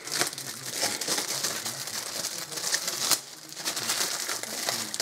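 Crinkled foil packing in a kit box rustling and crackling as hands dig out a plastic parts sprue, easing off briefly about three seconds in.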